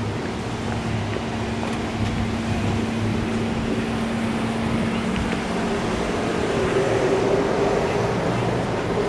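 Steady outdoor road traffic noise, with a motor vehicle's engine hum growing louder about seven seconds in.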